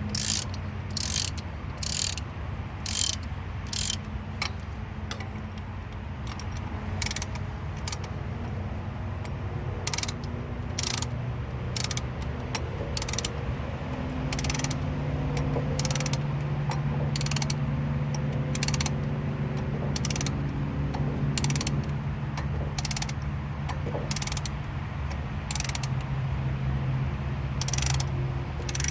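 Ratcheting brake caliper piston compressor tool clicking as it is worked to push the caliper piston back in, with short sharp clicks at an uneven pace of about one a second. A low steady hum runs underneath and grows louder about halfway through.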